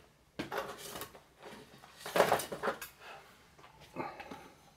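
Rummaging and handling objects on a hard surface: a few knocks and rustles, with a louder clatter around two seconds in.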